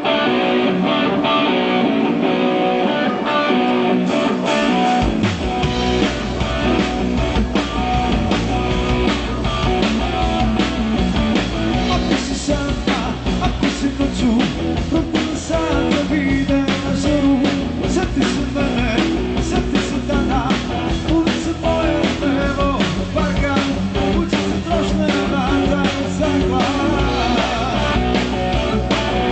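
Band playing a rock song led by guitar; bass and drums come in about five seconds in and carry a steady beat.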